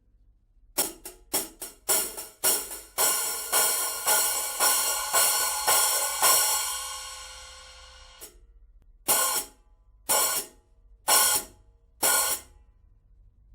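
Kingdo cymbal struck about a dozen times, roughly two hits a second, building into a bright wash that is left to ring and fade. Then four single strikes about a second apart, each cut short.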